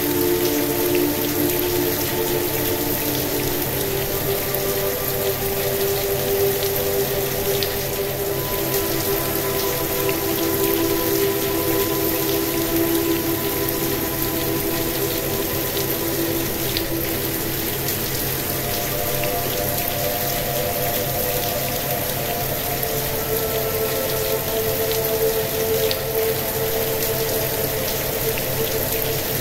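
Steady rain falling, mixed with soft ambient sleep music: sustained pad chords that shift slowly every few seconds over a low drone, a delta-wave relaxation track.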